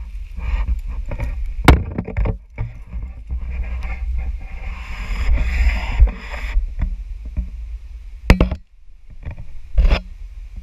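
Handling noise from a small camera on the ground being bumped and shifted: low rumble with several sharp knocks, the loudest about 1.7 s, 6 s, 8.3 s and 10 s in, and a stretch of scraping about halfway through.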